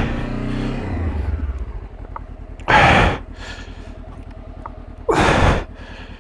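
Honda CB500X's parallel-twin engine dropping to low revs and running slowly as the bike is eased through a tight turn on the clutch. Two loud breaths into the rider's microphone come about three and five seconds in.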